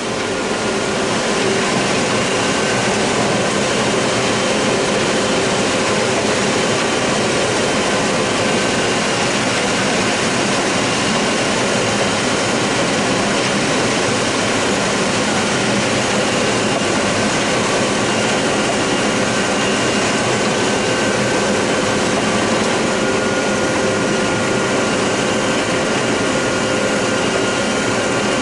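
John Deere 9600 combine running steadily while harvesting corn: a constant, loud machine drone with a few steady whining tones on top.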